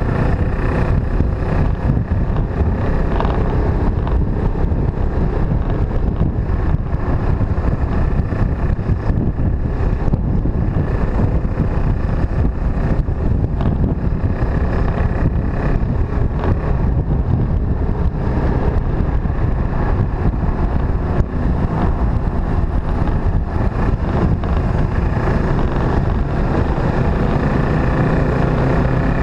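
Motorcycle engine running steadily under way, mixed with wind rushing over the microphone.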